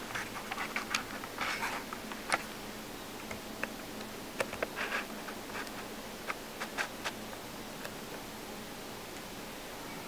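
Handling noise: short rustles and scattered small clicks, busier in the first half and with single clicks further on, over a steady hiss and faint hum.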